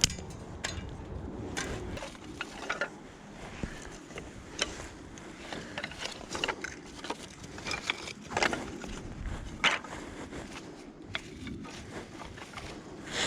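Firewood being handled: irregular knocks, snaps and scrapes of sticks, with a few louder knocks in the second half.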